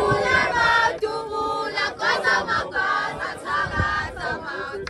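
A crowd singing a traditional Zulu song together, many voices holding long notes.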